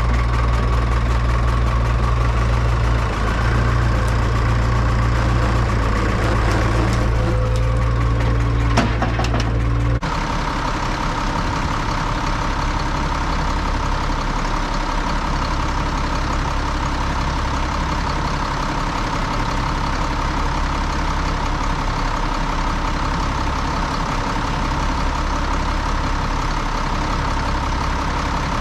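Farm machinery engines running steadily. About a third of the way in, the sound changes abruptly to a different engine note carrying a steady high whine.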